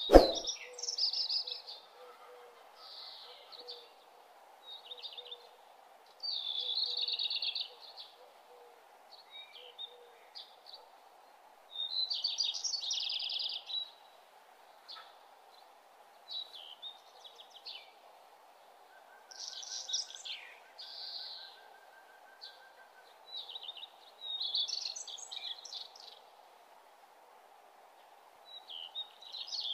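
Songbirds chirping and singing in short high phrases every few seconds over a steady low background hiss, with one sharp click right at the start.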